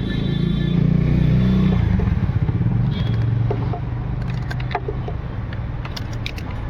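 A motor vehicle engine running nearby, a low rumble that swells in the first two seconds and then eases off, with scattered light clicks and clatter in the second half.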